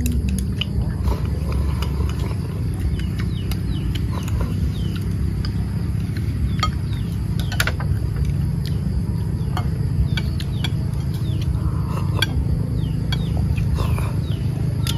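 Chopsticks and spoons clicking and tapping against ceramic bowls as people eat, with scattered short bird chirps and a steady low rumble underneath.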